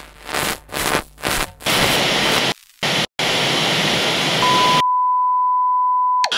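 Electronic TV-static noise from a logo sting: pulsing bursts of static for the first couple of seconds, then a steady stretch of loud static. A steady single-pitch test-tone beep comes in about four and a half seconds in and cuts off near the end.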